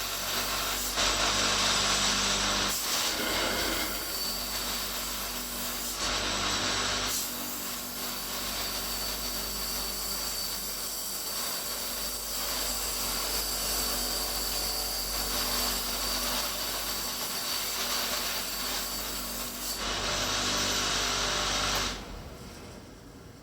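Homemade profile-pipe cleaning machine running, its electric motor turning angle-grinder brushes that scrub rust and oil off square steel tubing. The scraping swells in a few stretches as the tube is worked, and it cuts off near the end.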